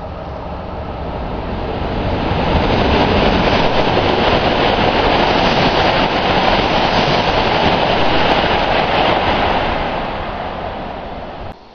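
An E7/W7-series Hokuriku Shinkansen train passing through the station at speed without stopping: a rush of air and rail noise that builds over the first few seconds, holds loud for several seconds, then eases off and cuts off suddenly near the end.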